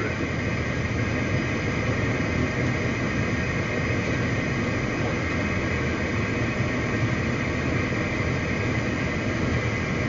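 Steady cockpit noise of a CRJ 700 regional jet on final approach: an even rush of air and engine noise at a constant level.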